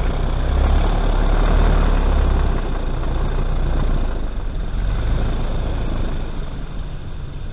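Airboat's engine and air propeller revving up and running loud, with a strong low drone under a broad rushing noise; the sound swells just at the start and eases slightly after about five seconds.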